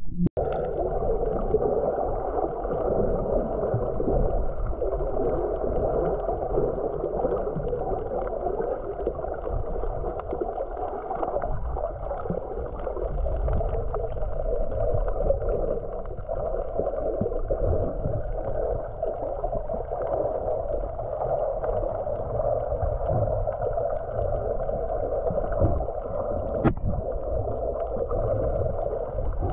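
Steady gurgling water noise, muffled as heard through a waterproof action camera held underwater, with a single sharp tick near the end.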